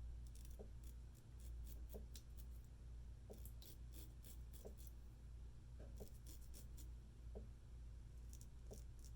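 Straight razor scraping through lathered stubble in short, light strokes, heard faintly in clusters of a few strokes at a time.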